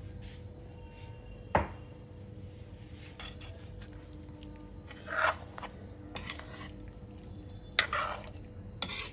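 Steel spoon stirring chicken pieces in masala gravy in a cooking pan, knocking and scraping against the pan: one sharp clink about a second and a half in, then scraping clatters about halfway through and near the end.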